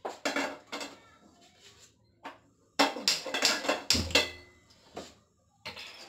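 Stainless-steel kadai clanking and scraping against the gas stove's metal pan support as it is set down and moved, in bursts of knocks. About four seconds in, the gas burner is lit and catches with a brief low puff.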